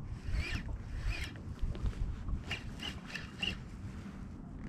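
Wind buffeting the microphone on open water, with a scatter of short, faint squeaks.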